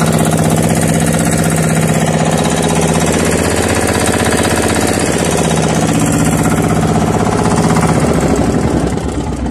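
A fishing boat's small inboard diesel engine running loud and steady with a fast, even knocking beat, easing down in level near the end.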